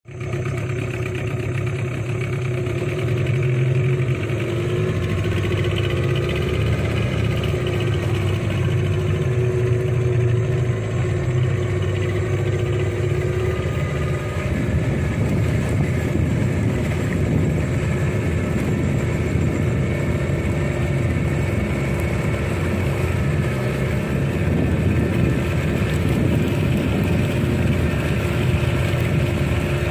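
Small river boat's motor running steadily as the boat moves along, its note turning rougher about halfway through.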